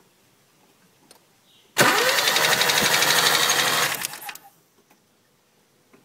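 Nissan Micra K11's four-cylinder engine turned over by its starter motor with the spark plugs out, cranking fast and evenly without firing for about two seconds, then winding down. The cranking spreads penetrating oil over the pistons of an engine that has sat for years.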